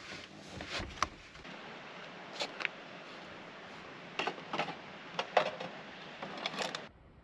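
Irregular knocks and scuffs of a person moving about and handling things, some coming in pairs, over a steady hiss, cutting off abruptly near the end.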